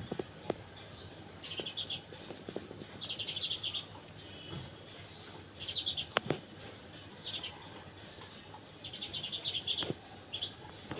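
Short bursts of rapid high-pitched chirping calls from a small animal, repeating every second or two, with a couple of sharp clicks in between.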